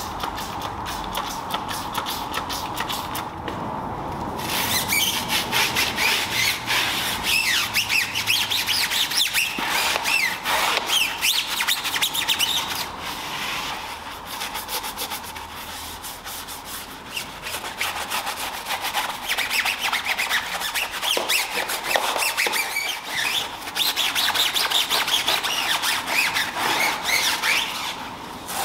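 A hand brush scrubbing a tyre sidewall lathered with tyre cleaner foam: scratchy rubbing with rubbery squeaks, starting about four seconds in, easing off for a few seconds midway, then picking up again.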